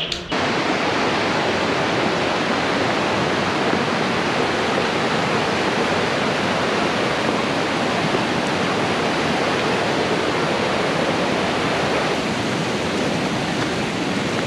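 Steady, loud rush of fast-flowing water, cutting in suddenly just after the start.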